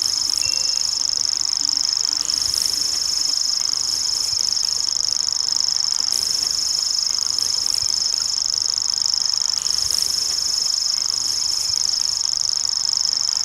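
Common grasshopper warbler reeling: one high, even trill held without a break.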